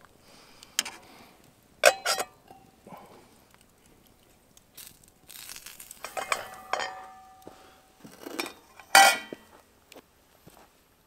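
A metal spoon clinks against a metal cooking pot of pasta, followed by the pot's metal lid going on and more ringing metal clanks. The loudest clank comes near the end.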